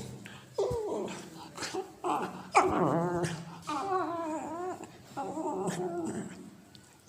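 Cocker spaniel puppy making odd whining vocalizations: about five wavering, pitch-bending cries in a row.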